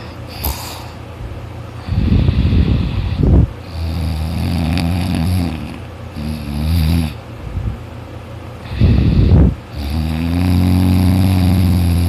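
A person in deep sleep snoring loudly: harsh, rattling snores alternate with longer, lower-pitched droning ones, over about two breaths.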